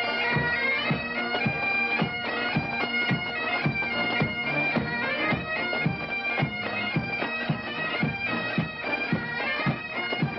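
Bagpipe music: a melody played over a steady drone, with a low beat about twice a second.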